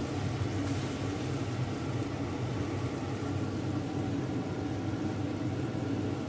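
A motor humming steadily, low and even, with no change in pitch or level.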